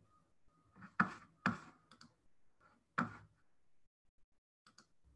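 Sharp clicks in a quiet room: three louder ones within the first three seconds and a few lighter ones near two and near five seconds, with nothing steady between them.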